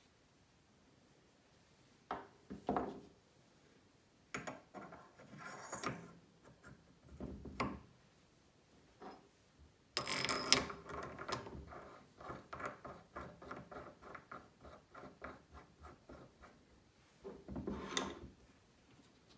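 Metal parts of a cast-iron watchmaker's spindle fixture being handled on a wooden bench: knocks and scrapes, the loudest about ten seconds in. They are followed by a run of quick, evenly spaced clicks, about five a second, as the spindle is turned.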